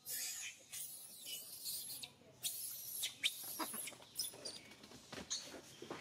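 A young macaque giving short, high-pitched squeals and screeches in quick bursts, with a few sharp clicks among them in the second half.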